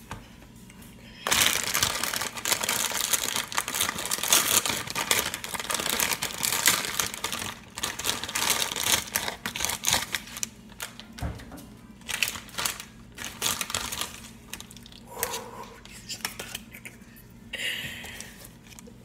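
Plastic instant-noodle wrapper crinkling as it is opened and handled: a long run of dense crinkling starting about a second in, then shorter scattered rustles.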